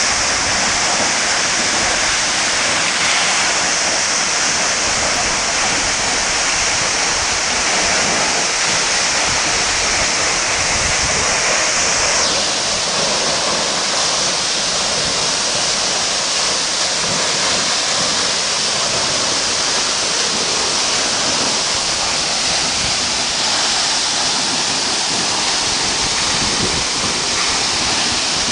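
Waterfall: a steady, loud rush of falling water, its tone shifting slightly about halfway through.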